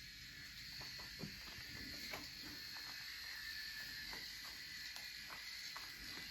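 Electric shaver running with a steady faint hum, with scattered small clicks and taps as it is handled.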